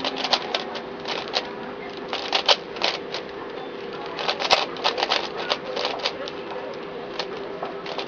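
Type F II 3x3x3 plastic puzzle cube being turned quickly by hand: rapid, irregular clicking of its layers, in quick runs of turns with short pauses between. A steady low hum runs underneath.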